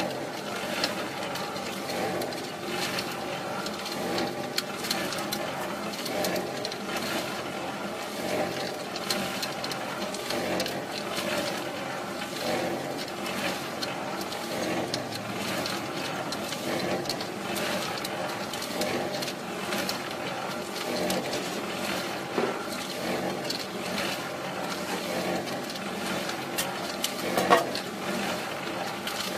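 Small electric cement mixer running, its motor humming steadily while gravel and wet concrete tumble in the turning drum with a constant patter of small clicks. A single louder knock comes near the end.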